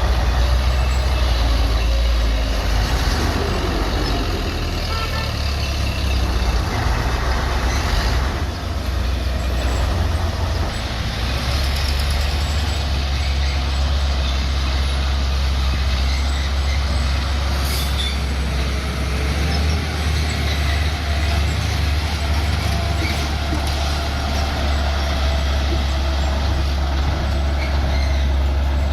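Bulldozer's diesel engine running continuously under work, with a steady low drone. The engine note and load shift a few times, easing somewhat between about five and eleven seconds in.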